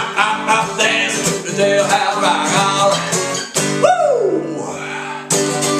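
Solo acoustic guitar strumming a rock-and-roll rhythm, with one long sung wail that falls in pitch about four seconds in.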